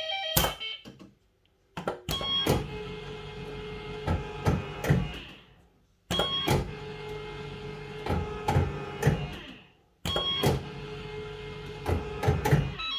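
Bellfruit Firecracker fruit machine spinning its reels three times. Each spin starts with a clunk, whirrs with clicks as the reels run and stop, then dies away to silence after about four seconds.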